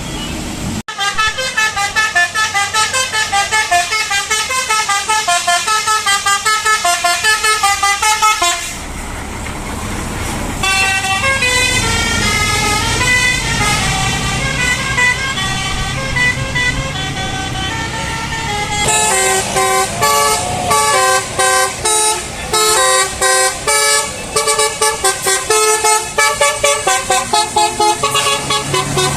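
Bus 'telolet basuri' multi-tone musical air horn playing fast melodies of short, sharply pitched notes, in three long runs broken by brief pauses about 9 s and 18 s in.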